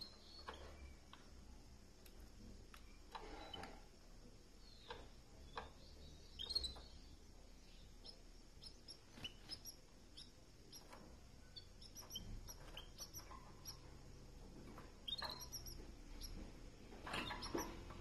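Pet canaries in a cage giving short, faint chirps at irregular intervals, the loudest about six and a half seconds in.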